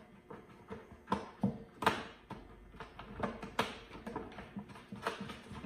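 Hands working inside a plastic 5-gallon bucket, threading the hex nut onto the back of a honey gate: scattered light clicks and knocks against the plastic, with two louder knocks about two and three and a half seconds in.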